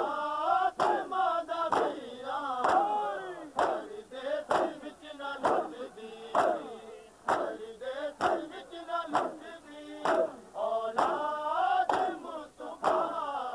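Crowd of men chanting a mourning lament in chorus, with loud unison slaps of hands on bare chests (matam) about once a second.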